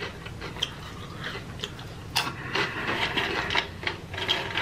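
Eating noises close to the microphone: irregular small clicks and crackles of chewing and handling food, the sharpest a little after two seconds in, over a faint steady low hum.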